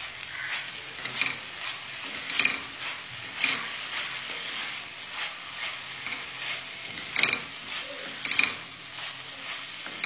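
Spatula stirring chopped water spinach in a cauldron over a steady low sizzle, scraping the pan about once a second.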